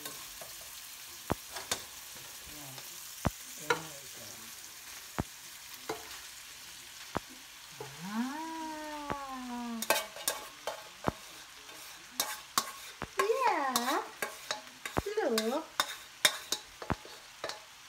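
Food sizzling in a hot wok while a wooden spatula stirs it, its sharp clacks against the pan coming more often after the cooked rice goes in about halfway through. A few short squeals that bend up and down in pitch come through near the middle and toward the end.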